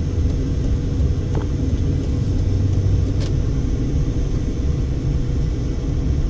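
Steady low road and engine rumble inside a moving Mercedes-Benz car's cabin, with a faint steady hum above it.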